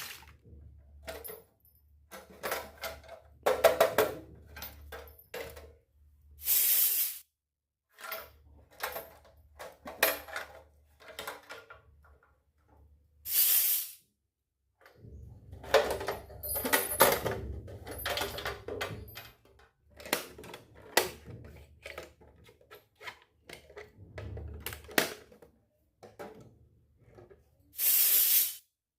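Miniature toy kitchen pieces being unboxed and handled: scattered clicks, taps and clinks of small plastic and steel pieces, with a few brief rustles of packaging, about seven, thirteen and twenty-eight seconds in.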